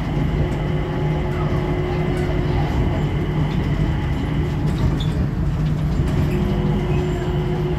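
Singapore airport Skytrain, a rubber-tyred automated people mover, running along its guideway, heard from inside the car. A steady low hum with a steady whine above it that fades about three seconds in and comes back about six seconds in.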